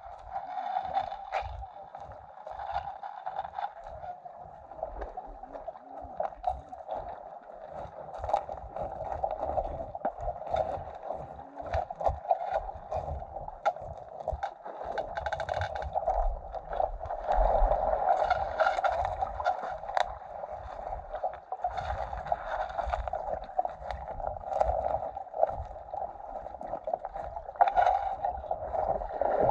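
Water gurgling and sloshing around the camera, with irregular knocks and low rumbles that swell and fade.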